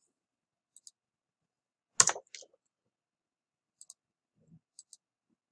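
Computer mouse button clicks, each a quick press-and-release pair, a few times over the stretch. About two seconds in there is one louder sharp knock.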